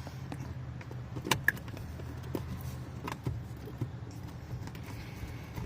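Scattered light clicks and knocks of parts being lined up and pressed into a steering wheel, the sharpest pair about a second and a half in, over a steady low hum.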